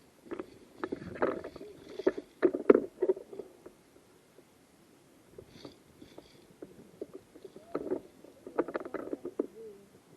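Rustling and scuffing of footsteps and gear as a player moves, in uneven bursts with a quieter spell in the middle.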